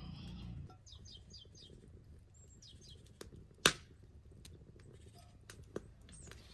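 Small birds chirping in short high series, with a few sharp clicks or knocks, one much louder than the rest about halfway through. A low hum stops about half a second in.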